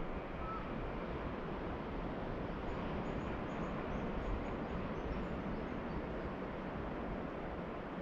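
Steady rush of ocean surf. A bird gives a run of faint, high, short chirps in the middle.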